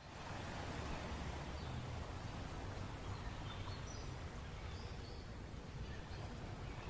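Seaside outdoor ambience: a steady rushing noise with a low rumble, and a few faint, short bird calls now and then.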